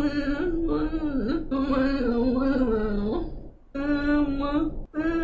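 Speech: a woman with motor neurone disease speaking slowly, with long drawn-out vowels held at an even pitch and two short pauses between phrases.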